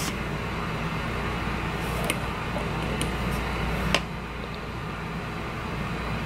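Steady low background hum of room noise, with three faint light clicks about a second apart near the middle.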